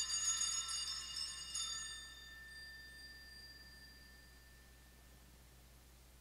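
Altar bells rung at the elevation of the consecrated host: a set of small bells shaken, with a second shake about a second and a half in, the ringing dying away over the next few seconds.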